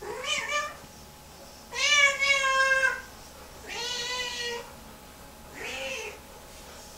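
Lynx Point Siamese cat yowling four times, the second yowl the longest and loudest and the last the faintest: one of her distressed meltdowns in the hours after a bath.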